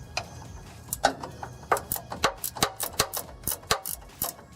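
Hand ratchet wrench clicking in a quick, uneven series as it is swung back and forth to spin a long bolt out while its nut is held. The clicks come closer together after about a second.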